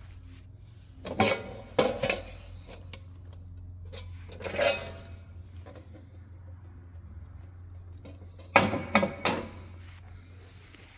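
Thin rolled sheet-metal shells being handled on a concrete floor, clattering and rattling in three short clusters: about a second in, near the middle and toward the end. A steady low hum runs underneath.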